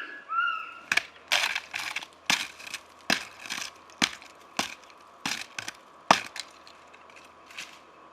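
A short high, sliding elk call, then a run of sharp wooden cracks and snaps, like dry sticks and branches breaking, about one or two a second before they die away near the end.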